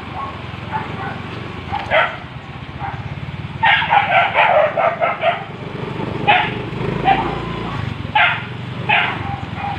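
A pack of street dogs barking: a quick run of barks about three and a half seconds in, then single barks roughly once a second.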